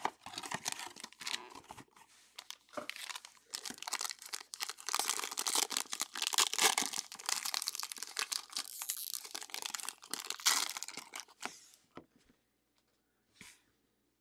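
Foil wrapper of a trading-card pack crinkling and tearing as it is opened by hand, a dense run of crackles and sharp clicks; the crackling stops about two seconds before the end.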